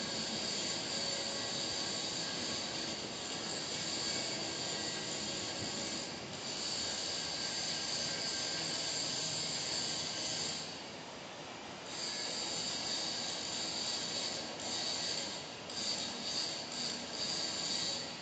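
Electric arc welding on a pipe: the arc crackles and hisses steadily. It drops out for about a second near the middle and stutters on and off near the end.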